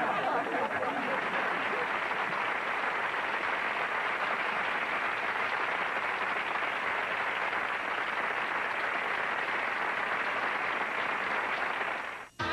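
Audience applause, a steady wash of clapping that cuts off abruptly near the end.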